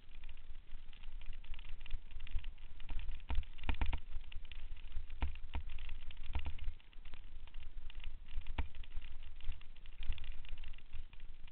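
Mountain bike riding fast down a bumpy dirt trail, heard through a mounted camera: wind rumbling on the microphone over tyre noise on the dirt, with several sharp rattling knocks as the bike hits bumps, a cluster of them around four seconds in.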